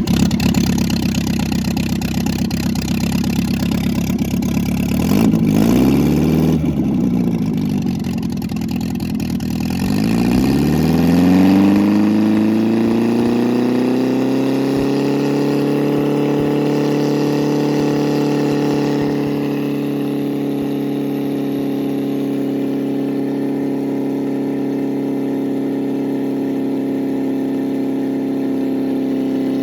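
Freshly rebuilt MGB 1800 (18V) four-cylinder engine running with no muffler, just after starting. The revs rise and fall briefly about six seconds in, then climb from about ten seconds in and hold steady at a raised speed.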